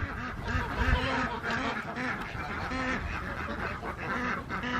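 A flock of farm ducks quacking, with many short calls overlapping one another.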